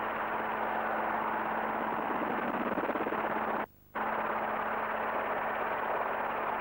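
Robinson R22 helicopter in flight: steady engine and rotor noise with a constant low hum. It drops out suddenly to near silence for a moment a little before four seconds in, then resumes.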